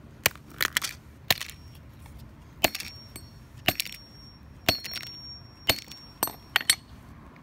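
Claw hammer striking a cracked Samsung Galaxy S3 smartphone on concrete: about ten sharp hits, roughly one a second, with a few quick double blows near the end.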